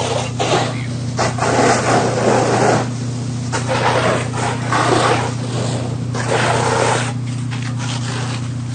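Fire truck engine running steadily with a low hum while a water stream from its hose sprays in uneven surges, each lasting a second or more.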